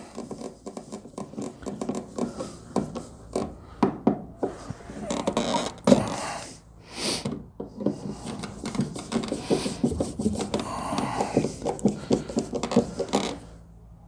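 Hand screwdriver turning the mounting screws of a GFCI receptacle into its electrical box: a run of irregular small clicks and scrapes, with a brief hiss about halfway through.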